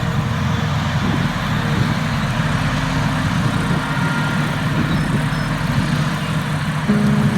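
Steady running of a large diesel engine, like a tractor or combine harvester, with a dense low rumble and no change in speed.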